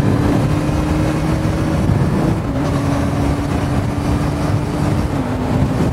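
Kawasaki Ninja ZX-14R's inline-four engine with a Yoshimura slip-on exhaust running steadily under way, with wind and road noise. The engine's pitch dips slightly about two and a half seconds in and again near the end.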